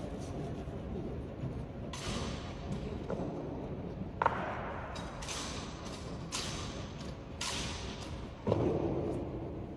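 Army honor guard drill: a series of about six sharp slaps and knocks, roughly a second apart, from rifles being handled and struck in the drill. The sharpest crack comes a little before the middle, and a heavier thud with a short ring comes near the end.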